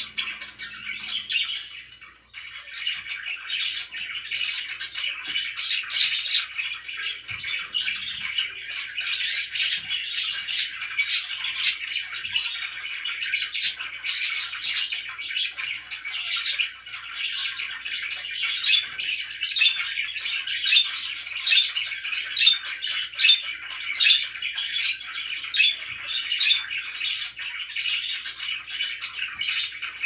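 Pet budgerigars chattering: a continuous warble full of short sharp chirps and squawks, with a brief lull about two seconds in.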